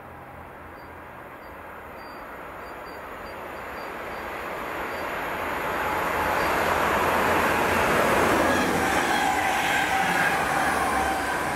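Stadler KISS double-deck electric multiple unit (DB IC2 InterCity) approaching and passing at speed. Its rolling noise builds steadily to a peak about eight seconds in, with a whine that falls in pitch as it goes by.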